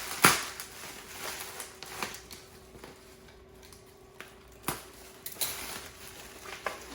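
Packaging being opened by hand: irregular rustling with several sharp knocks, the loudest about a quarter second in.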